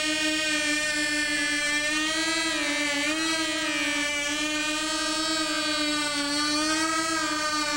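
Engine and propellers of a radio-controlled model VTOL aircraft flying low, giving a steady high-pitched buzz whose pitch wavers slightly up and down as the throttle is worked.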